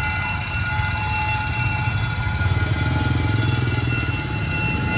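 Level crossing warning alarm sounding steadily while the barrier is down, with a low engine rumble swelling from about two seconds in.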